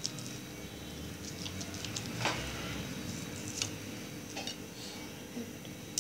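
Fork and knife clicking and scraping against a plate while cutting into a whole roast chicken, a few sharp clinks with the loudest about two seconds in, over a steady low hum.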